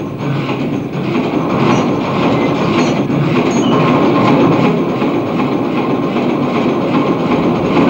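Steady rumbling and rattling mechanical noise, slowly growing louder.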